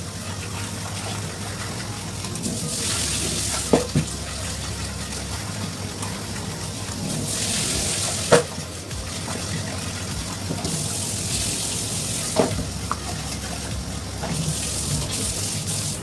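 Knife scraping the scales off a queen fish on a cutting board: four long scraping strokes of a couple of seconds each, with short sharp knocks of the blade in between.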